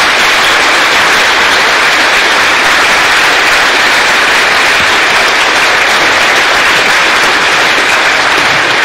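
Audience applauding steadily at the end of a lecture.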